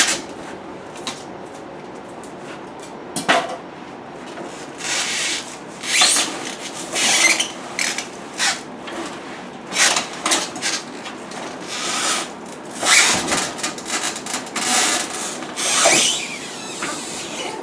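Packaging being scraped and pulled off from underneath a new refrigerator: irregular scraping and rubbing strokes, with a few sharp knocks.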